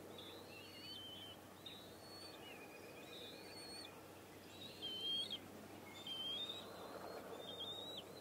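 A bird singing short whistled phrases that rise and step in pitch, about one a second, over steady outdoor background noise. A louder, lower rush of sound swells about five to seven seconds in.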